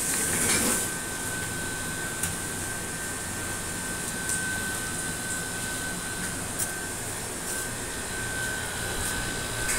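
Steady whooshing noise with a thin, high whistle held over it, a brief rustle about half a second in and a few faint ticks.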